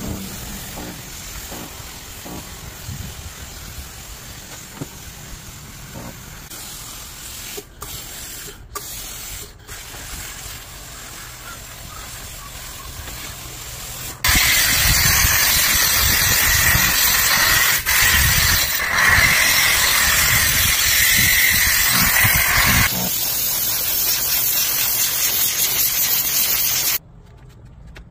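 Steam cleaner hissing as its cloth-wrapped wand steams and disinfects the fur of a giant plush teddy bear. The hiss is softer at first, turns loud and harsh about halfway through, and cuts off suddenly near the end.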